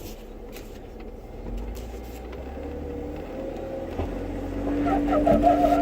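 Engine of a 4x4 off-road vehicle running under load as it crawls up rock, growing louder, with a wavering whine coming in near the end.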